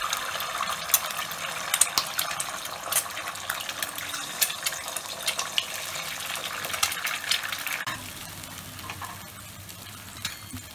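Eggs frying in hot oil in a metal kadai: a steady sizzle with frequent sharp crackles and pops. About eight seconds in it drops suddenly to a quieter sizzle.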